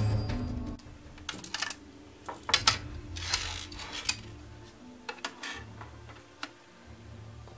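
Handling clatter of 2.5-inch SSDs and a plastic drive bracket on a wooden desk: a string of sharp clicks and taps, the loudest about two and a half seconds in, and a short sliding scrape a second later as the drives are laid down side by side.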